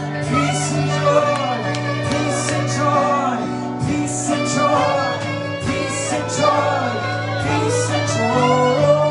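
Live worship music: a voice singing long, bending lines over sustained chords, with the bass note shifting about a second in and again near the end.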